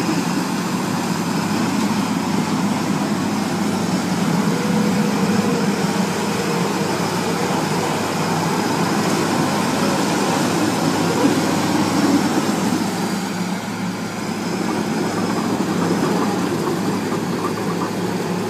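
Engine of a tracked tractor running steadily as it drives a rotary tiller through a flooded rice paddy, dipping briefly in level about two-thirds of the way through.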